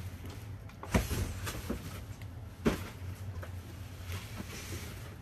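Empty cardboard boxes being handled and moved about, with two sharp knocks, one about a second in and one past the middle, and lighter taps and rustling between them.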